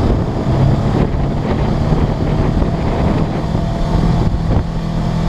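Polaris RZR 900S side-by-side's engine running steadily while driving, heard from inside the cab, with wind noise on the microphone.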